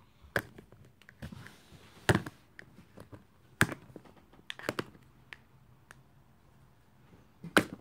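Hard plastic clicks and knocks at irregular intervals, about five sharp ones with lighter ticks between, as a yellow plastic Play-Doh tool is handled and pressed into pink dough over a plastic bin.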